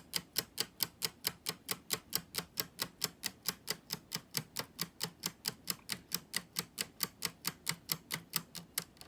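3D-printed PLA tourbillon escapement model ticking steadily, about five sharp plastic ticks a second. The ticking stops near the end.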